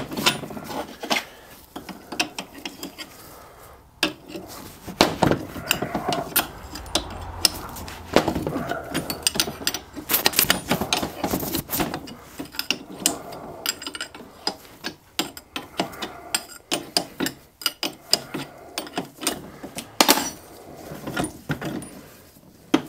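Steam waggon regulator valve assembly being dismantled by hand with a spanner: irregular metal clinks, knocks and scraping as the tool and parts are worked and moved, with the sharpest knocks about halfway through and again near the end.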